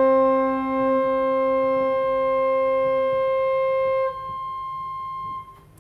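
A single note held on the great organ of an 1899 J. J. Binns pipe organ while its stops are pushed in one after another. The ranks of pipes drop out one by one, the lowest pitches first, so the tone thins in steps until the last high pipe falls silent shortly before the end.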